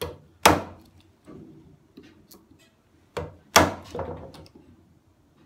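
Bench chisel struck from above, knocking waste wood out of a rebate along a solid cherry benchtop: a few sharp strikes, the two loudest about three seconds apart, with lighter taps between.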